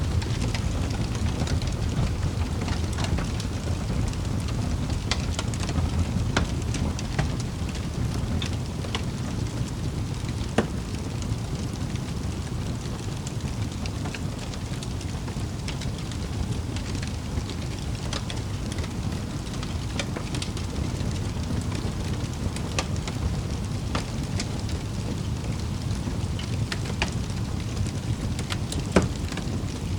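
Wood fire burning in a fireplace: a steady low rumble of flames with irregular sharp crackles and pops, two louder pops about ten seconds in and near the end.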